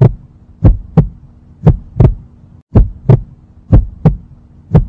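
Heartbeat sound effect: a slow double 'lub-dub' thump repeating about once a second, over a faint steady hum.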